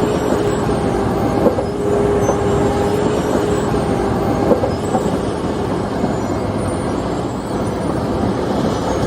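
Asphalt milling machine running: a steady heavy rumble with a steady whine that fades about halfway through, and two short knocks, one about a second and a half in and another past four seconds.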